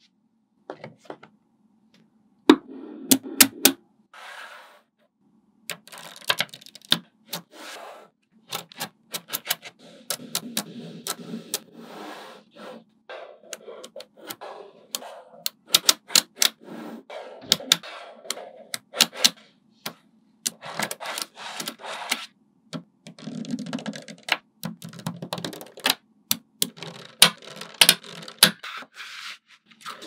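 Small neodymium magnet balls clicking sharply as they snap onto one another, irregular and sometimes several a second, with stretches of softer clattering as balls are rolled and shuffled against each other, broken by brief silent gaps.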